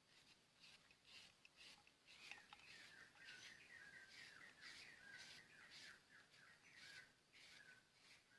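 Faint bird chirping: a quick run of short, repeated chirps that starts a couple of seconds in and keeps going.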